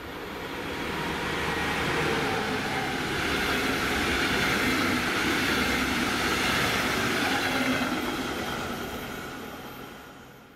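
A train passing on the tracks: the rumble and rush rise over about two seconds, hold steady for several seconds, then fade away near the end.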